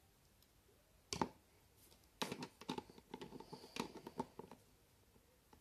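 LEGO plastic pieces clicking and rattling as they are handled and pressed together: one sharp click about a second in, then a run of small clicks.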